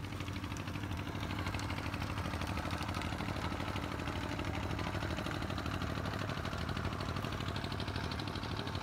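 A small engine running steadily at low revs with a fast, even pulse.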